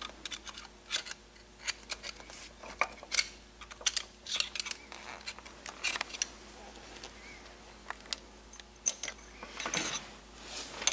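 Small metal clicks and clinks, irregular and sharp, as a spacer is worked off the input shaft in the front bore of an Eaton Fuller Roadranger 13-speed semi truck transmission.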